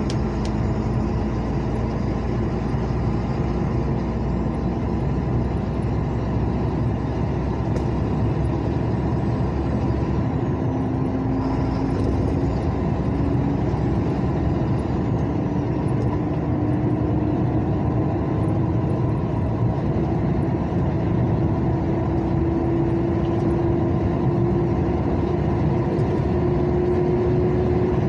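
A vehicle's engine and tyre noise while driving on asphalt, heard from inside the vehicle. The engine note holds steady, then from about ten seconds in climbs slowly and steadily.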